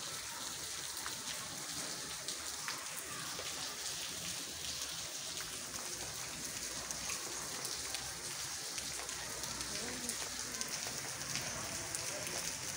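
Steady rain falling on a flooded street, a constant hiss dotted with many small drop ticks.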